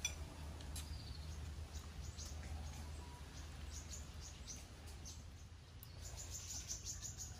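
Faint rural outdoor ambience: scattered short, high chirps, with a denser run of them about six seconds in, over a low steady rumble and a few faint clicks.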